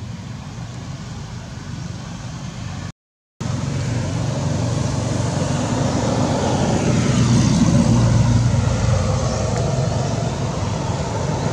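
Steady rumble of a motor vehicle, swelling louder as it passes about two-thirds of the way through. The sound cuts out completely for half a second about three seconds in.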